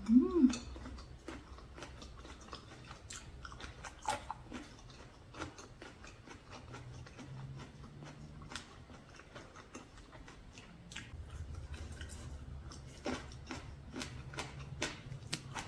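Close-up chewing and biting of food, with scattered short crunchy clicks throughout, opened by a brief "mm"-like vocal sound. The eating is of a spicy mixed-seafood salad with shrimp, squid and shellfish.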